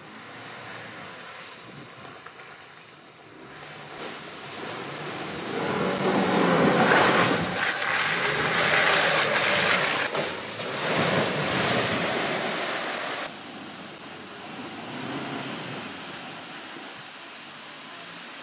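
New-generation Land Rover Defender wading through a muddy puddle: a rushing splash of water and mud around the wheels over the vehicle's running, building up and loudest midway, then dropping away abruptly about 13 seconds in to a quieter rush.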